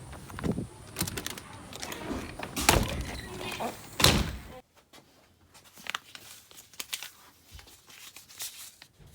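Several knocks and thuds, the loudest about two and a half and four seconds in, then a sudden drop to quieter, scattered soft clicks.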